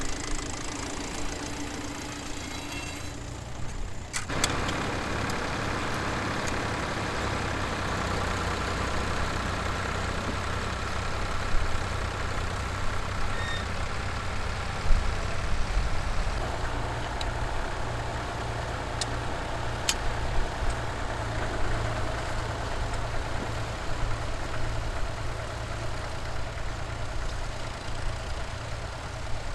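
Vintage tractor engines running steadily, with a sudden change in the engine sound about four seconds in and another around sixteen seconds, as one tractor gives way to another.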